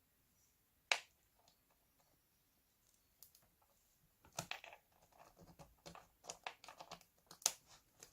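Small plastic clicks and taps of a laptop SATA cable connector being handled and pressed into place on its socket on the motherboard. There is a sharp click about a second in, then a run of smaller clicks from about four seconds that ends in another sharp click.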